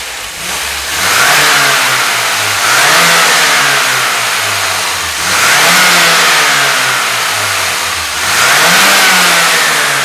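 A 2008 Saab 9-3's 2.0-litre turbocharged four-cylinder engine being snap-revved, its pitch rising and falling back again and again, about every three seconds. It picks up cleanly with no hesitation, despite the car logging random misfire codes.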